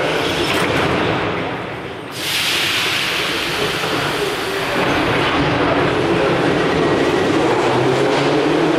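Metro train at the platform: a sudden hiss about two seconds in as the doors shut, then the train starting off and running out along the platform, its noise growing steadily louder.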